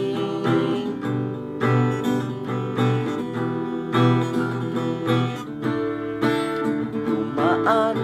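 Acoustic guitar strummed in a steady rhythm, about two strokes a second, its chords ringing between strokes.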